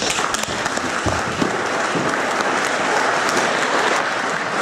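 An audience of many people clapping and applauding in a hall, breaking out suddenly and continuing steadily.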